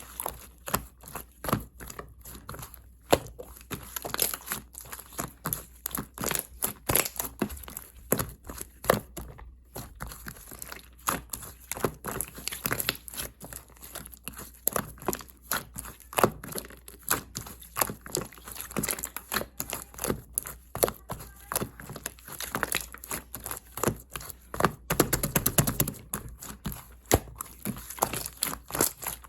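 Sky-blue clear slime being squished, stretched and pressed by hand, making a continuous run of irregular sticky clicks, pops and crackles, with a denser, louder stretch a little before the end.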